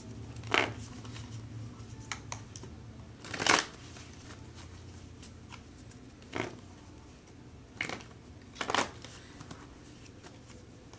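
A deck of tarot cards shuffled by hand: about five or six short shuffles, a second or more apart.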